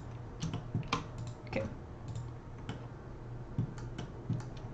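Computer keyboard keys and mouse buttons clicking in an irregular scatter of short, sharp clicks while working in 3D software.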